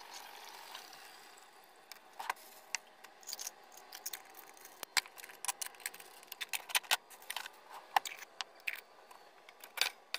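Scattered light clicks, taps and rattles of kitchen items being handled on a counter.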